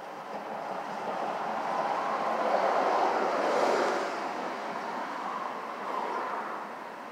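A passing vehicle: a rushing noise that builds over the first few seconds, peaks about three to four seconds in, then fades away.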